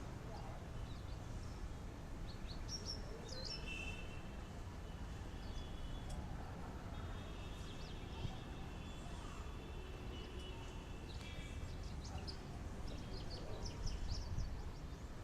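Birds chirping over a steady low rumble of outdoor background noise.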